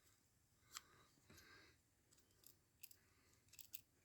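Faint clicks and a brief scrape of a Swiss Army knife being handled, its tools such as the tweezers and toothpick slid in and out of the handle.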